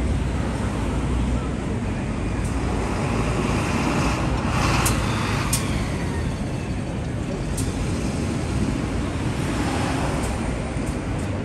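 Busy city street traffic noise, steady, swelling as a vehicle passes about halfway through, with a few sharp clicks.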